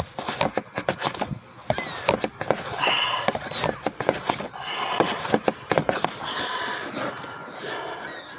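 Scattered light clicks and knocks of bolts and parts being handled while a thermostat housing is fitted in a cramped engine bay, with several loud breaths or sniffs through the nose in between.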